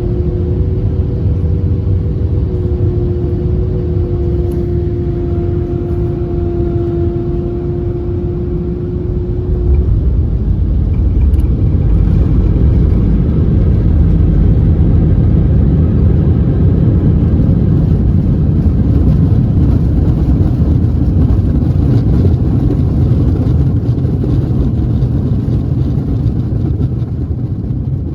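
Airbus A319 landing, heard from inside the cabin: engines running with a steady whine of two held tones over a low rumble. About ten seconds in the whine gives way to a louder, broad rumble as the plane touches down and rolls out under heavy braking, with loud brakes that make the whole plane vibrate.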